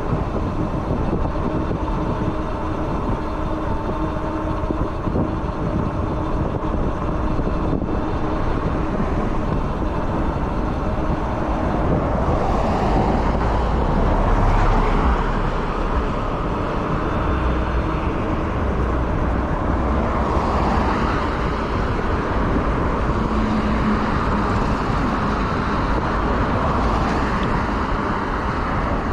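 Road traffic noise on a busy street, heard from a moving e-bike, with a steady low rumble throughout. A vehicle passes more loudly about halfway through.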